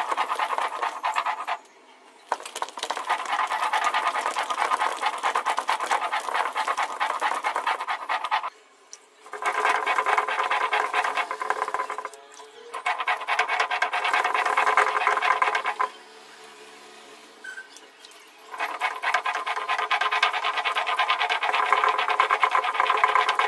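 Stone grinding stone by hand: a cylindrical stone roller pushed back and forth over a flat stone slab (ammi kal), grinding wet chutney paste with a fast, gritty scraping. It comes in spells broken by short pauses, with a longer break about two-thirds of the way through.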